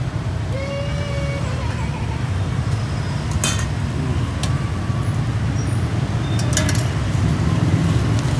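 Steady low rumble of street traffic, with a few sharp clinks of metal tongs against a stainless steel bowl.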